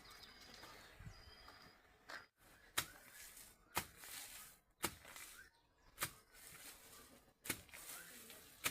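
Faint sharp knocks, roughly one a second, over quiet outdoor background.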